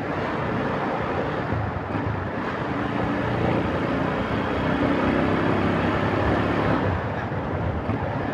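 Rusi Gamma 200 motorcycle ride: steady wind and road rush over the microphone with the engine running underneath, its note holding steady through the middle few seconds.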